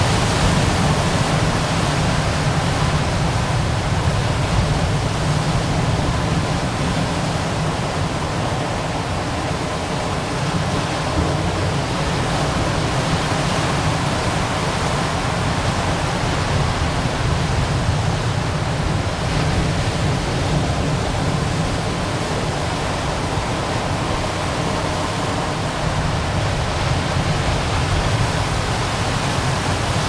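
Ocean surf washing onto rocks in a cove: a continuous rush of breaking water, with no single wave crash standing out.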